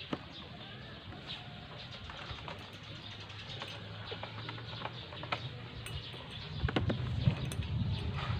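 Light clicks and taps of hands working a motorcycle's throttle cable and carburetor, with birds calling in the background; the handling noise grows louder with low thumps near the end.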